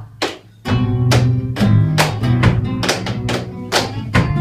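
Flamenco music with guitar and sharp percussive strikes keeping a beat of about two to three a second, starting a little under a second in.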